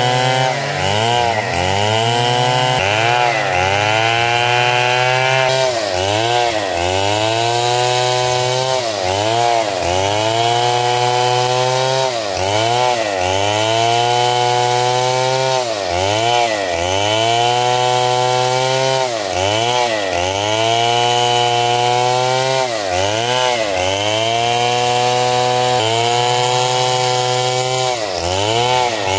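Stihl MS 070, a large two-stroke chainsaw, running at full throttle while sawing through wood. The engine's pitch keeps sagging under the load of the cut and climbing back, roughly every one to three seconds.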